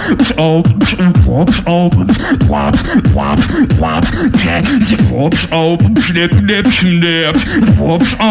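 Solo beatboxer performing through a microphone: a fast, steady beat of sharp snare- and hi-hat-like mouth strokes, with sung bass tones between them that slide and wobble in pitch.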